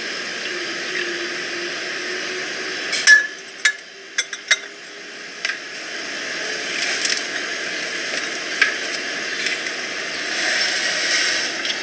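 Brewed coffee poured from a glass V60 server into a ceramic cup, then a few sharp clinks of glass and ceramic about three to four seconds in as the server is set down; a steady hiss runs underneath.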